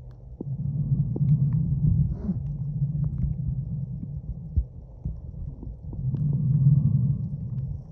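Muffled underwater rumble of moving water picked up by a submerged phone, swelling twice, with scattered sharp clicks.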